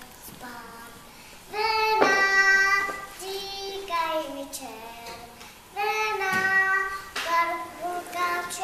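A young child singing a song alone without accompaniment, in phrases of held notes starting about a second and a half in.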